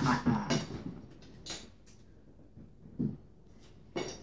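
Boiled crab shells being cracked and picked apart by hand over plates: a few scattered short cracks and clicks, about one every second.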